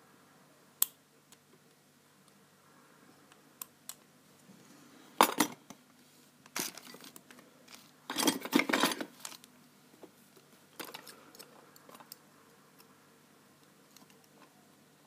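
Lock picks and a tension wrench clicking and scraping in the keyway of an American Lock 1105 padlock, with scattered light clicks and two louder bursts of metallic clinking and rattling about five and eight seconds in.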